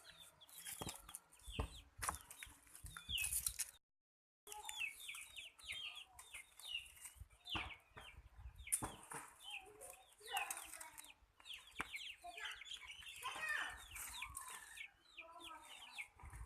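Chickens clucking with many short, repeated calls, mixed with sharp clicks and knocks. The sound drops out completely for about half a second near four seconds in.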